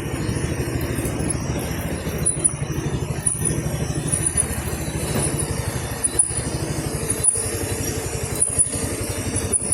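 Motorcycle engine running steadily under way, its fast, even firing pulse continuous throughout.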